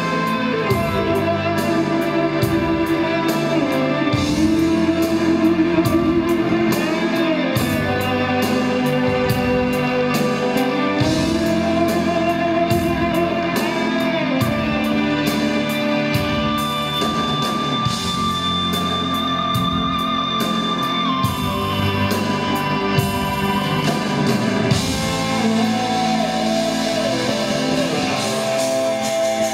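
Live progressive rock band playing an instrumental passage: electric guitar lead lines with long held, bending notes over drums and bass.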